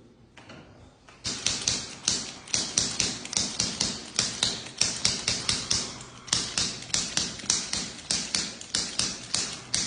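Rapid rhythmic percussive slapping of a therapist's hands on the patient's body, about five crisp taps a second, starting about a second in and going on steadily, as in tapotement massage of a relaxed muscle.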